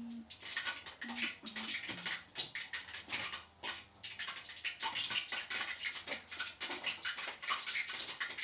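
Cooking oil heating in a pan, crackling with irregular small pops several times a second.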